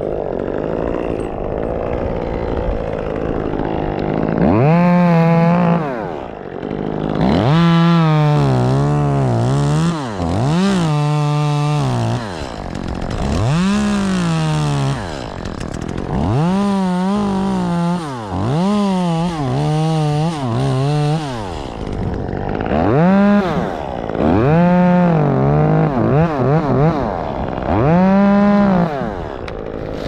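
Petrol chainsaw running, revved hard and let back down again and again, about nine times, its engine note rising and falling with each burst of throttle.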